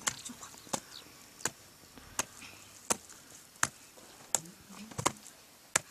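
A hand tool striking hard, dry earth in a steady rhythm: nine sharp blows, about one every 0.7 s.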